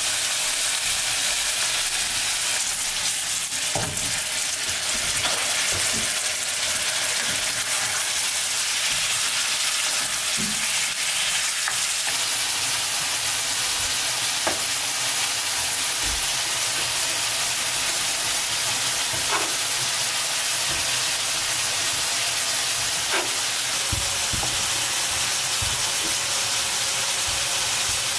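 Diced chicken breast and mutton tail fat sizzling steadily in a frying pan, with a few scattered soft knocks.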